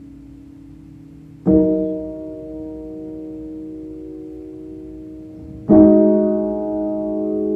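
Slow, sparse piano music: a chord is struck about one and a half seconds in and left to ring and fade, then another chord is struck about four seconds later and rings on.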